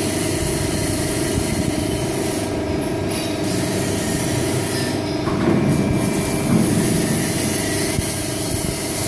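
Hydraulic pump and motor of a WF67K-200T/6000 CNC hydraulic press brake running with a steady hum, swelling briefly about five seconds in.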